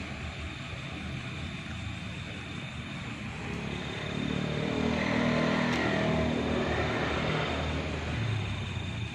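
A motor vehicle passing on a nearby road over steady traffic noise: its engine grows louder about halfway through, then fades.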